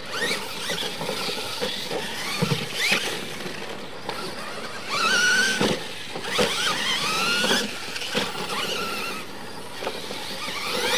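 Losi LMT radio-controlled monster trucks racing on dirt: their electric motors and drivetrains whine, rising and falling in pitch as the trucks speed up and slow down. A few short knocks come through, as from trucks landing off jumps.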